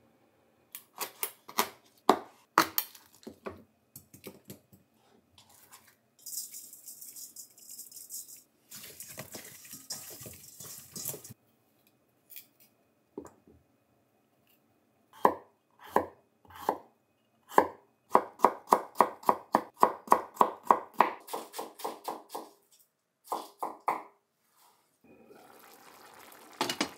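Kitchen knife work on a cutting board: scattered knocks, a few seconds of running tap water, then fast, even chopping at about six strokes a second, slicing ginger. A pot starts simmering near the end.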